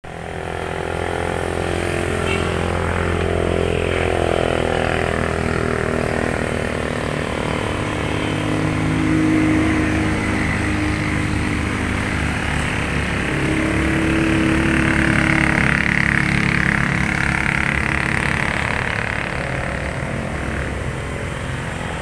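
Motorcycle engine running close by, its pitch swelling slightly a couple of times.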